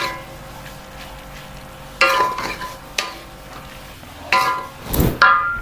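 A wooden spatula stirs and scrapes noodles around a steel wok, with several knocks against the metal pan that ring briefly. The loudest knocks come close together near the end, over a faint steady sizzle of frying.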